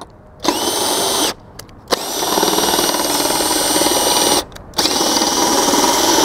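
Cordless drill turning the adjustment screw of an adjustable patio drain, raising or lowering its stainless steel top. It runs in three steady spells: briefly near the start, then longer from about two seconds in, and again after a short stop near the end.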